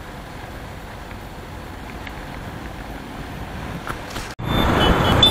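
Steady wind rush and vehicle noise on the microphone. A sudden cut comes just after four seconds, followed by louder road noise carrying a high, steady whine.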